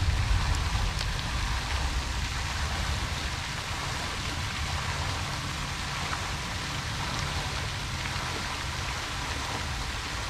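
Steady hiss and patter of a pond fountain's spray falling back onto the water, with low wind rumble on the microphone that is stronger in the first few seconds.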